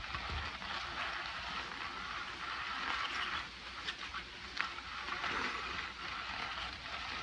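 Steady whirring, rustling noise from a battery-powered cat toy, a wand sweeping under its fabric cover. A few light taps near the middle as a cat paws at the cover.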